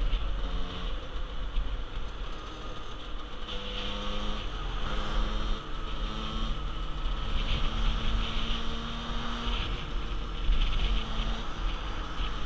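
50cc motorcycle engine running under way, its note holding and then shifting slightly in pitch, with heavy wind rumble on the helmet microphone.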